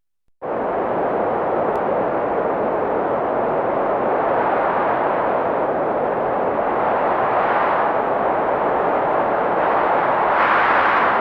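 Heavy blizzard wind as a steady rushing noise, cutting in suddenly after a brief silence about half a second in, with a stronger gust near the end.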